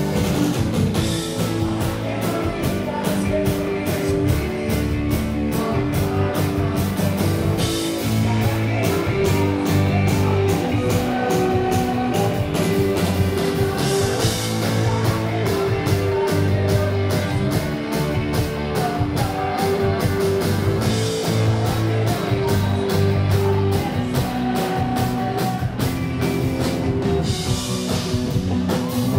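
Rock band playing live, with electric guitars, bass and drum kit over a steady drumbeat.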